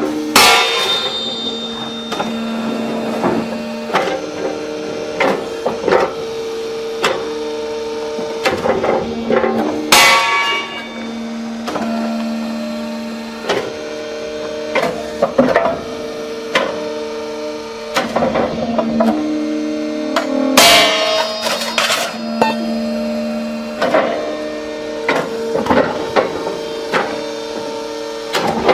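Hydraulic rail-breaking press running with a steady whine, under frequent metal clanks and three loud ringing cracks about ten seconds apart as steel rail sections are snapped and fall.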